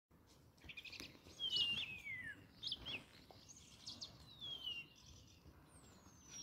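Wild songbirds calling: clusters of short chirps and three long whistles that slide down in pitch, over faint outdoor background noise.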